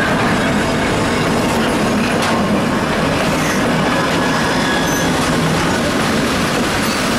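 2M62U twin-section diesel locomotive passing close by as it slows into a platform: its two-stroke diesel engines running and its wheels rolling over the rails, with faint high squeals from wheels or brakes. Near the end the locomotive gives way to the first passenger coach.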